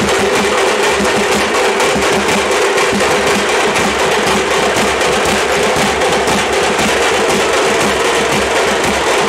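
Loud live drumming by a street band of hand-held frame drums and snare-type drums beaten with sticks, keeping up a fast, steady beat.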